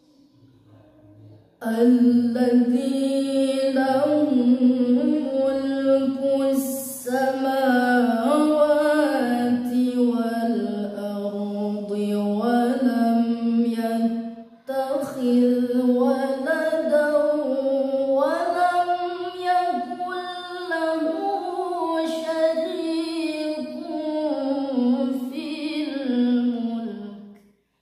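A woman's voice chanting Quranic verses in melodic recitation (tilawah): long, drawn-out phrases with held, ornamented notes that step and glide in pitch. She starts about a second and a half in and pauses briefly for breath about halfway through.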